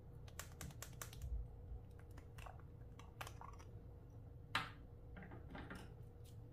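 Clear slime being squeezed and mixed by hand, giving an irregular string of sharp clicks and pops, with the loudest pop about four and a half seconds in.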